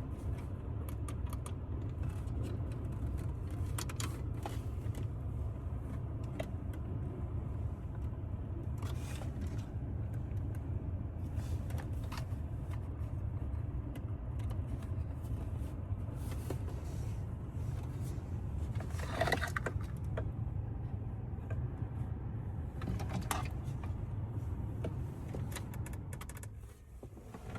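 Steady low rumble of a running car heard from the cabin, with scattered clicks and light rattles of parts and wiring being handled, the loudest about two-thirds of the way in. The rumble drops away near the end, as the car's running sound is switched off.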